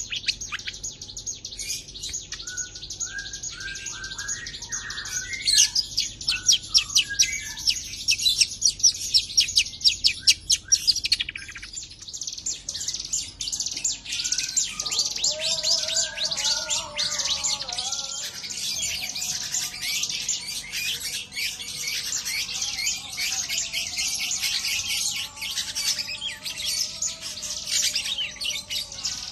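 Long-tailed shrike (cendet) singing continuously: an unbroken run of fast, high-pitched chattering notes woven with lower warbling phrases mimicked from other birds. The chatter comes loudest and most evenly pulsed in the first half.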